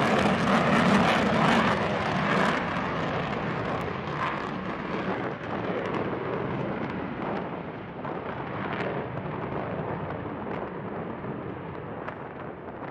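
Jet noise from a B-1B bomber's four afterburning turbofan engines on takeoff, with scattered crackles. The roar is loudest at the start and slowly fades and grows duller as the aircraft climbs away.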